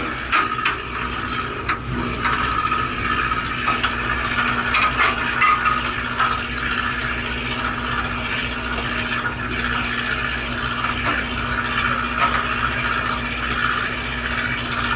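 Fishing boat's engine running with a steady low hum, under a wash of sea noise and a few light clicks.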